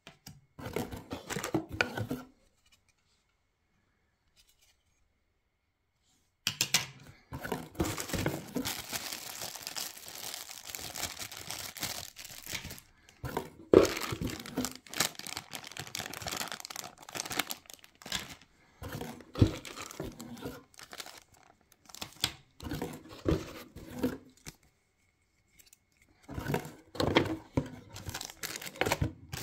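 Cardboard box and plastic packaging being handled: rustling and crinkling with sharp knocks and clicks as the box is opened and unpacked. A short burst of handling comes first, then a break of about four seconds, then almost unbroken rustling with brief pauses.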